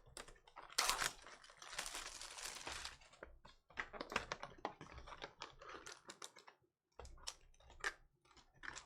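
Trading cards being handled: a quick run of sharp clicks and flicks as cards are flipped and sorted. About a second in there is a stretch of crinkling from a pack wrapper.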